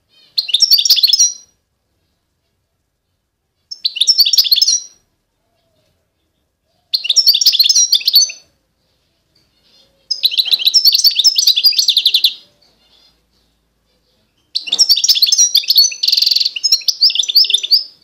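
A songbird singing in five separate phrases of rapid twittering notes, each one to three seconds long with short pauses between them. The last phrase is the longest and includes a bright, even trill.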